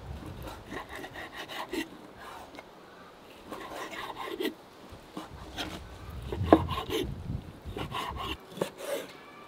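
Large kitchen knife slicing raw beef on a wooden end-grain cutting board: irregular sawing strokes of the blade through the meat, scraping and tapping on the wood, with one sharper knock about two-thirds of the way through.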